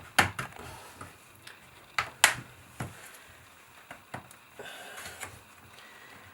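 Snap-in clips of a laptop's bottom cover popping loose as a plastic pry tool works along the edge: a series of sharp clicks and clacks, the loudest about two seconds in, with brief scraping of the tool.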